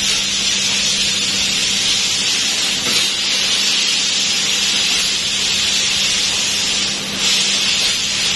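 CNC laser cutting machine cutting sheet metal: a loud, steady hiss of the cutting jet with a steady low hum underneath, dipping briefly about seven seconds in.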